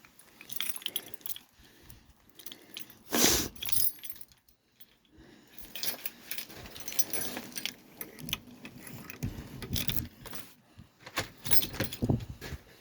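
A bunch of keys jangling and clicking in a door lock, with a loud knock about three seconds in.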